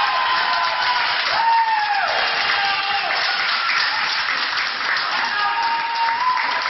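Crowd of spectators clapping and cheering a goal, with a few long, wavering high tones sounding over the clapping.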